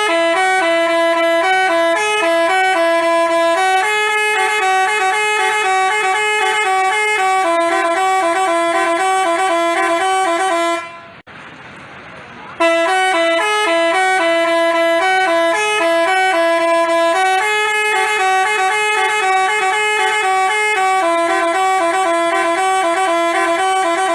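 Basuri telolet horn playing a tune of stepped, sustained notes. The same phrase plays twice, with a short break about eleven seconds in.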